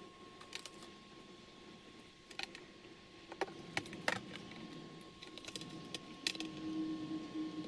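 Scattered light clicks and taps of small tablet parts being handled and fitted during reassembly, over a faint steady high tone; a low hum grows louder near the end.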